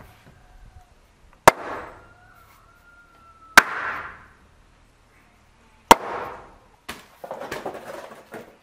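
Three heavy blows of a wooden mallet on the timber frame, about two seconds apart, each a sharp crack with a short ringing tail, driving a mortise-and-tenon joint home. Near the end, a shorter run of softer knocks and rustling.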